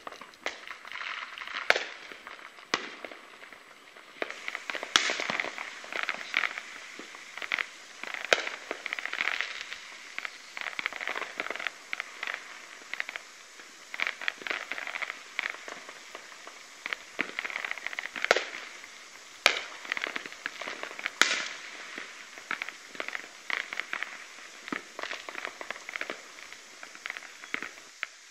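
Fireworks and firecrackers going off without pause: a constant crackling and popping, with a sharper loud bang every few seconds.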